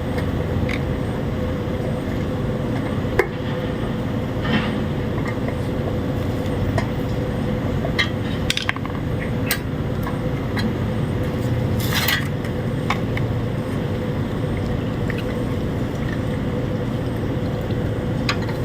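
Water sloshing and splashing as ceiling-fan blades are soaked and washed in soapy water, with scattered clinks and knocks and a steady hum underneath.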